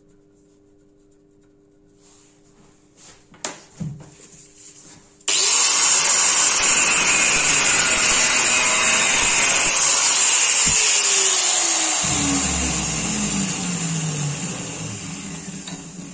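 Angle grinder with a thin cutting disc starting up suddenly about five seconds in and cutting a copper rod held in a vise, then winding down with a falling whine over the last few seconds. A couple of light metal clinks come before it starts.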